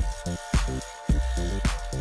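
Background music with a steady beat, about two beats a second, over a moving bass line.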